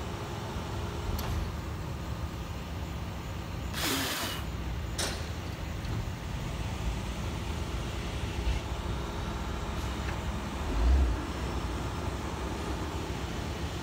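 Heavy truck's diesel engine running steadily, with a burst of air hiss about four seconds in and a shorter one a second later. A low thump comes near the end.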